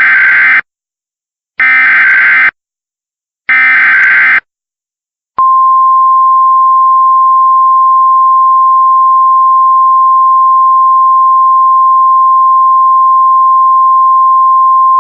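Three EAS SAME header data bursts, each just under a second of harsh, buzzing warble, about two seconds apart, then about five seconds in the National Weather Service 1050 Hz attention tone starts and holds steady for about ten seconds: the opening of a new emergency alert broadcast.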